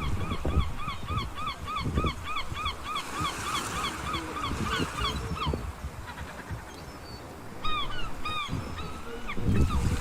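A bird calling in a rapid, even run of short arched notes, about three a second for some five seconds, then two louder calls near the end, over a low, uneven rumble.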